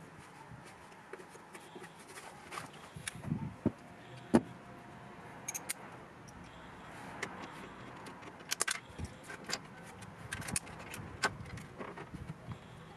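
Hand tools and metal parts clinking and clicking at irregular intervals as fittings are put back in a car's trunk, with one sharp metallic knock about four seconds in.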